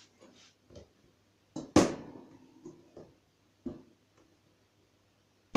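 Wire rabbit cage being handled: its metal bars clink and knock in a run of separate clicks, with one sharp, ringing clank about two seconds in and another near the end.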